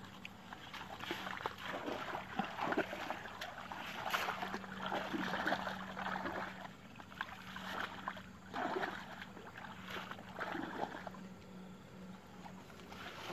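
Two people wading through knee-deep pond water, with irregular splashing and sloshing at each step. A faint steady low hum runs underneath.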